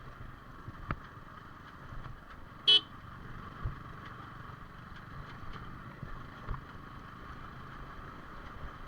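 Yamaha R15 V4 motorcycle riding over a rough dirt track: steady engine and road noise with a few knocks, and one short horn beep about three seconds in.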